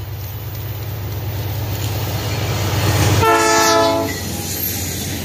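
Canadian National diesel freight locomotives running past, their engine rumble growing louder as they approach. About three seconds in, one short horn blast of several tones sounds, dropping slightly in pitch as the lead unit goes by.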